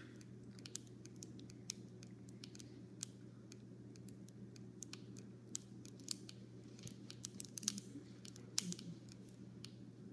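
Self-inflating foil balloon packets crackling and ticking faintly and irregularly as they swell with gas, over a steady low hum.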